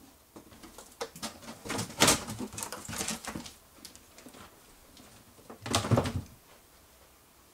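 Outer cardboard carton being lifted off a table and set down on the floor: cardboard rubbing and scraping, with a loud knock about two seconds in and another about six seconds in as the box is put down.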